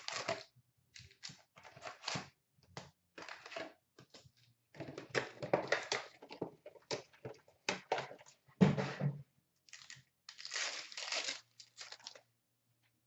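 Hockey card box and packs being opened by hand: cardboard and pack wrappers crinkling and tearing in short, irregular rustles and rips, with one louder knock-like rip about two-thirds of the way through.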